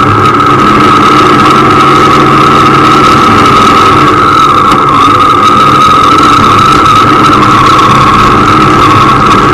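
Motorcycle engine running steadily at low, even revs, heard close from an onboard camera, with a steady high whine over it.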